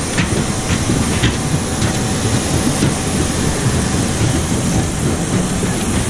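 Steady low rumble of a vehicle in motion, with a few light rattles in the first two seconds.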